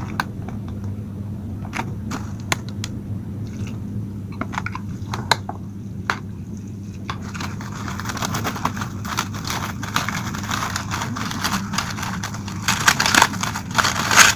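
Plastic food packaging crinkling and rustling as it is handled and opened, with scattered clicks and taps; the crinkling grows denser and louder in the second half. A steady low hum runs underneath.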